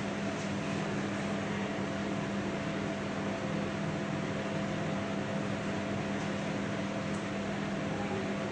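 Microwave oven running in microwave mode while cooking a pizza: a steady low hum over an even whir, unchanging throughout.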